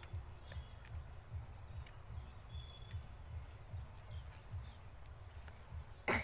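Outdoor pond-side ambience: a steady high-pitched insect drone over an uneven low rumble, with faint scattered ticks. One sharp knock comes near the end.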